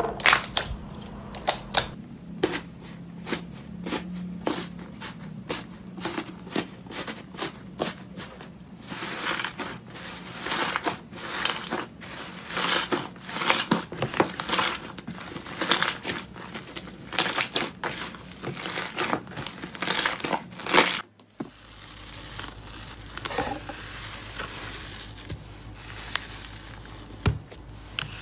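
Slime being squeezed and kneaded by hand, giving quick sticky pops and crackles as it is pressed and pulled. The popping grows dense in the middle, then turns softer and sparser after about 21 seconds.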